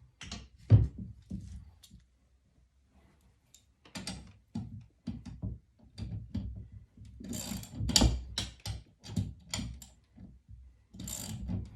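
Irregular knocks and clicks of metal mounting hardware and tools being handled, with a sharp knock about a second in and a quick run of clicks near the middle to end.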